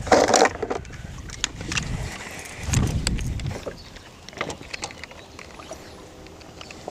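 Small clicks and knocks of a caught bass and a fish scale being handled in a fishing boat, with a low thump about three seconds in.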